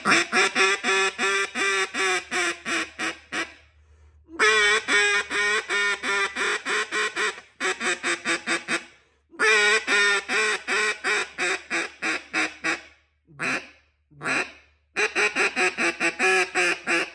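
Handmade bocote-wood duck call blown in several rapid strings of short quacks, with brief pauses between them and two lone quacks about three quarters of the way through. The call's reed has just been clipped shorter to tune it, and to its maker it now sounds pretty good.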